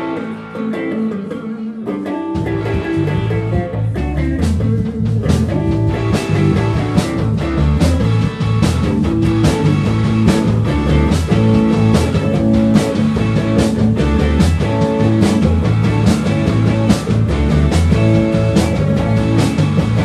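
Live rock band playing: an electric guitar starts alone, low notes join about two seconds in, and the drum kit comes in with a steady beat from about five seconds, the whole band then playing together.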